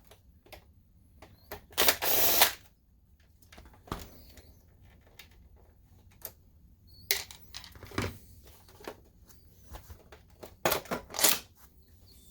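Plastic clicks, knocks and scraping from handling a DLP projector's housing while its lamp door is taken off. There is a louder scrape about two seconds in and a quick run of clicks near the end.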